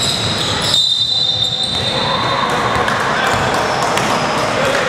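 Basketball game sounds on a hardwood court in an echoing gym: the ball bouncing, with players' voices and a high steady squeal-like tone in the first second and a half.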